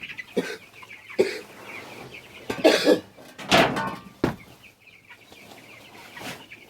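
A flock of young broiler chickens peeping steadily, with several short, harsh, cough-like sounds, the loudest about midway.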